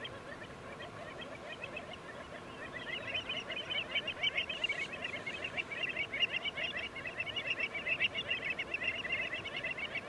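A large flock of waterbirds calling together: a dense chatter of many short, overlapping calls that grows louder about three seconds in.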